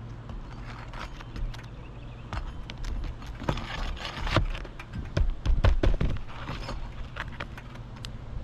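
Hand tool scraping and knocking under asphalt roof shingles as they are pried loose to get at the nails, with a cluster of heavier knocks about halfway through.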